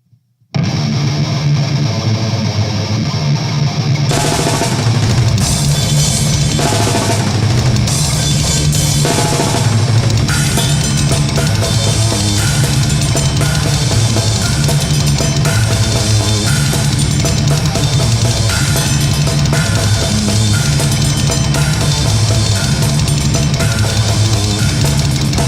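Death/doom metal band playing: a distorted guitar riff opens about half a second in, and the full band with drum kit and fast bass drum comes in about four seconds in.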